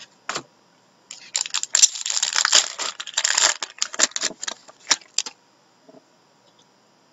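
A pack of Upper Deck Artifacts hockey cards being shuffled and slid against each other by hand: a quick crackly rustle of card stock rubbing on card stock. It starts about a second in and stops about five seconds in.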